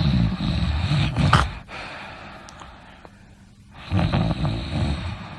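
A person snoring: two long snores, the first ending in a short, louder snort about a second and a half in, the second starting about four seconds in.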